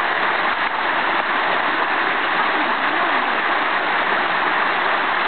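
Small river waterfall pouring steadily over rocky steps into a pool, an even rushing of water with no breaks.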